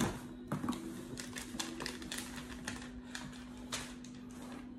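Paper and cardboard being handled: a sheet of paper pulled off a cardboard shipping box makes a run of irregular crackles and clicks that thin out near the end. A steady low hum sits underneath.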